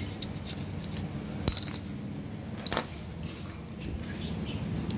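Metal starter-motor parts and hand tools clinking while the starter is being taken apart, with two sharp clinks about one and a half and three seconds in and lighter small taps between. A steady low hum runs underneath.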